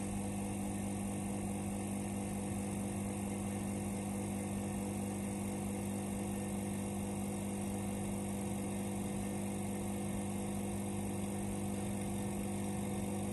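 Vacuum pump running with a steady hum, evacuating the sealed mixing chamber of a lab sigma kneader as the vacuum builds.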